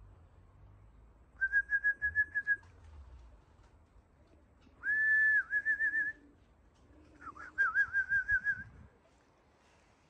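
A person whistling three times, each a high note that breaks into a quick warble. It is a fancier's call to bring racing pigeons circling overhead down to the loft.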